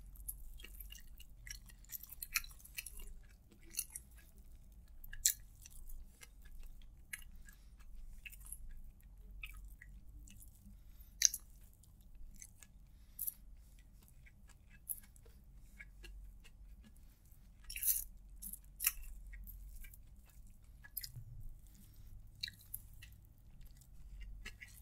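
Close-miked chewing of a mouthful of spiced rice and fried egg eaten by hand, with many small wet mouth clicks and smacks scattered throughout.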